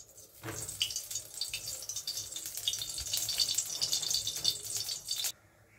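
Cooking oil poured into a hot metal kadhai on the gas, sizzling and crackling in the pan; the sound cuts off suddenly near the end.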